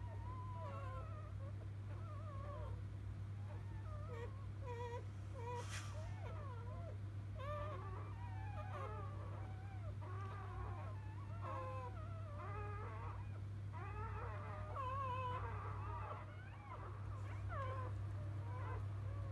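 Newborn Labrador retriever puppies squeaking and whimpering in thin, high, wavering cries that come one after another and often overlap. A steady low hum runs underneath.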